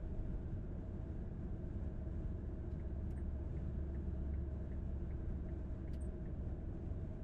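Road noise inside a moving car: a steady low rumble of the tyres and engine, with a few faint light ticks midway.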